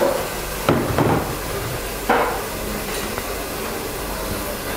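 A few short knocks of a plastic tray and utensils on a steel kitchen counter, over a steady hiss.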